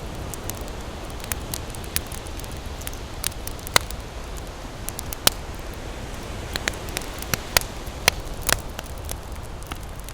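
Wood fire burning in a fireplace, crackling with irregular sharp pops, a dozen or so louder ones scattered over a steady low rush of flame.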